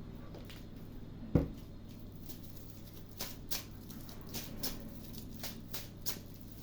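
Tarot cards being handled on a table: one dull thump about a second and a half in, then a run of light, irregular clicks and flicks, a few a second.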